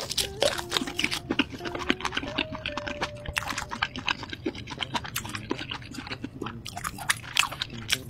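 Close-miked biting and chewing of a large glazed sausage: many irregular crisp crunches and wet chewing, with another bite near the end.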